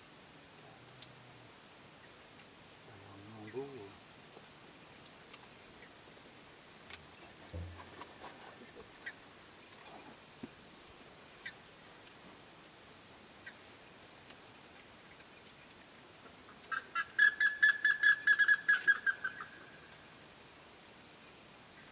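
Steady high-pitched drone of insects in grassland, with a short chirp repeating about once a second just below it. Near the end a bird gives a rapid series of loud pulsed notes lasting about two and a half seconds.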